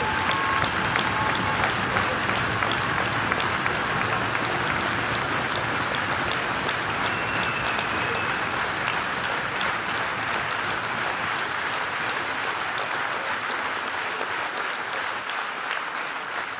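Large audience clapping steadily in a standing ovation, dying down near the end.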